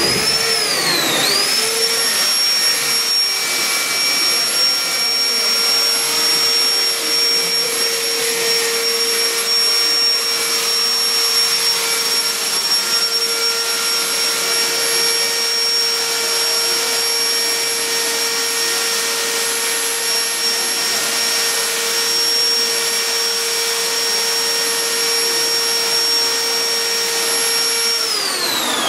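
Electric motor running with a steady high whine; it slows briefly about a second in, holds steady, then spins down near the end.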